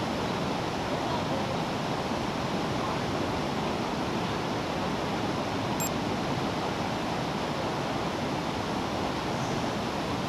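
River water rushing steadily over shallow rocky riffles.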